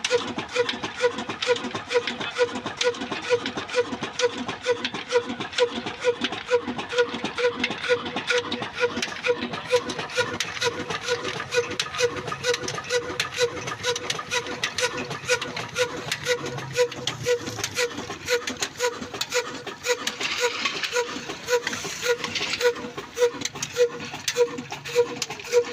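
Old black single-cylinder desi diesel engine running at a steady speed, its exhaust beating evenly. A brighter hiss joins in for about two seconds near the end.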